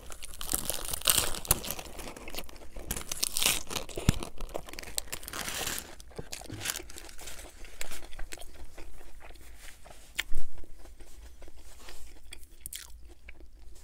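Close-up chewing of a burger wrapped in crisp iceberg lettuce: crunching lettuce and crinkling paper wrapper, busiest over the first six seconds, then quieter chewing. There is one brief louder noise a little past ten seconds in.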